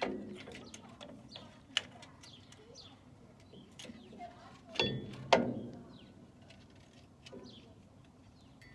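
Metal clicks and clanks of tools and drum-brake parts, springs and hardware, being handled, with two louder ringing clanks about five seconds in.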